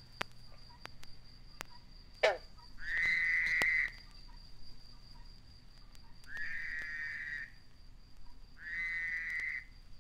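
Frogs trilling: three calls of about a second each, a few seconds apart, with one sharp pop about two seconds in. Played from a 1956 vinyl field-recording LP, with light surface clicks throughout.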